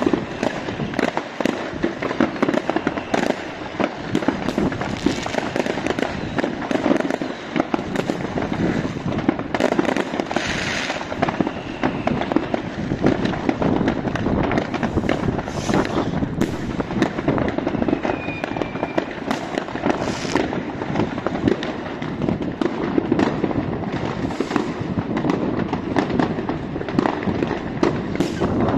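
Many fireworks and firecrackers going off at once: a dense, unbroken barrage of bangs and crackles, with a few brief hisses and a short whistle.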